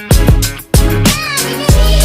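Background music with a steady beat: funk-style drums and heavy bass, with a melodic line gliding near the middle.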